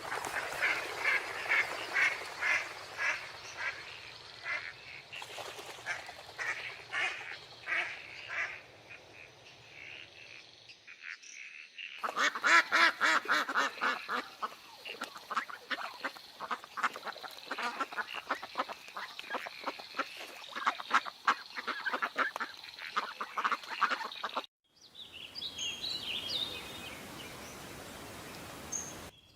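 Ducks quacking in a flock, with many rapid overlapping calls and a hard cut to another flock about twelve seconds in. Near the end a different clip holds sparse, higher-pitched chirps.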